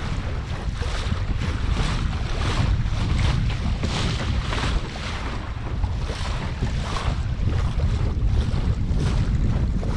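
Wind buffeting the microphone in a steady low rumble, over water rushing and splashing against the hull of a Laser Pico sailing dinghy as it cuts through choppy waves, with repeated splashes.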